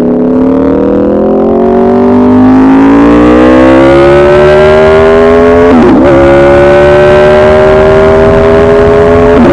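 Aprilia RSV4 RF's V4 engine through an open SC Project exhaust with the catalyst removed, very loud and pulling under load, its pitch climbing steadily. The pitch breaks briefly about six seconds in, like a gear change, then keeps climbing.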